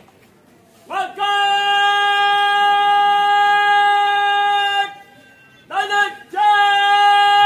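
A Border Security Force soldier's drawn-out shouted parade command, one high note held steady for nearly four seconds. After a brief pause, a short rising call leads into a second long held shout near the end.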